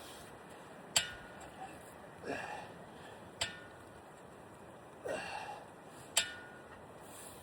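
A man doing pull-ups: a sharp metallic clink with a brief ringing tone three times, about two and a half seconds apart, with a strained exhale or grunt between the clinks on each rep.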